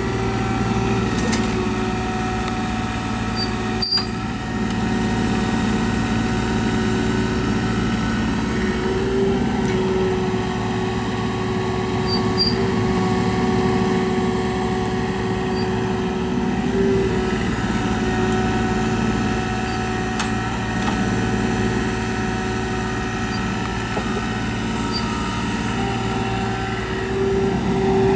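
Kubota U-30 mini excavator's diesel engine running steadily while the boom, arm and bucket are worked, with a whine that comes and goes as the controls are moved. A single sharp clank about four seconds in.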